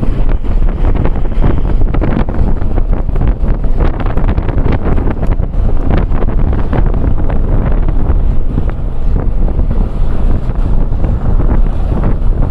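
Wind buffeting the microphone: a loud, steady low rumble with frequent crackles throughout.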